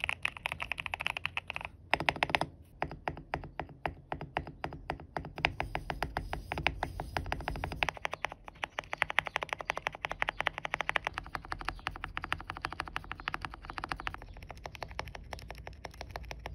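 Fast typing on a custom GMK67 mechanical keyboard with Gateron Silver Pro V3 linear switches, tape-modded and fitted with PBT keycaps: a dense, quick run of key clicks with short pauses.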